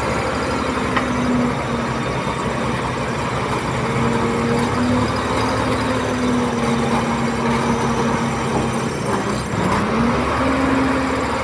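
Diesel engine of a Komatsu D31P bulldozer running steadily. Its pitch dips about nine seconds in and climbs back a second later.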